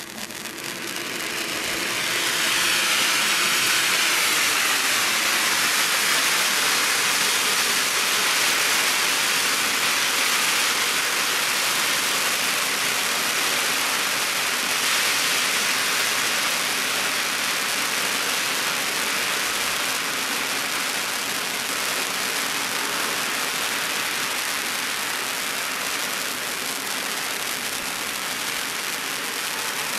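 Ground fountain firework spraying sparks with a steady, loud hiss. It builds up over the first couple of seconds and then holds, easing slightly toward the end.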